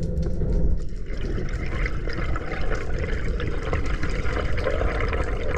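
Steady rush of water on an underwater action camera's microphone as a freediver swims.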